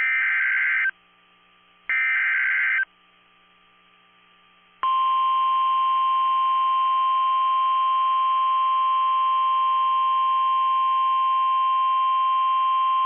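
NOAA Weather Radio Emergency Alert System activation. First come two one-second buzzy SAME digital header data bursts, a second apart. Then, about five seconds in, the steady 1050 Hz warning alarm tone starts and holds. Together they signal a new Severe Thunderstorm Warning.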